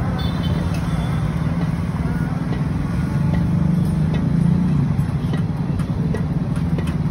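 Steady low rumble of nearby road traffic, vehicle engines running, swelling a little about four seconds in.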